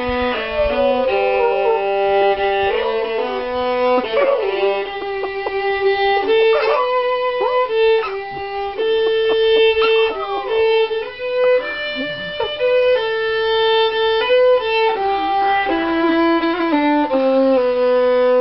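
A violin playing a slow melody of held notes, with a dog howling along at several points, its voice sliding up and down over the music.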